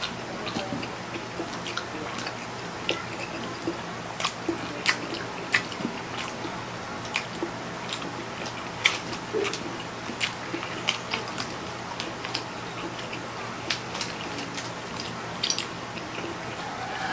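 Close-up mukbang eating sounds of two people eating Samyang cheese-flavour spicy instant noodles with forks: chewing and slurping, with many irregular sharp clicks.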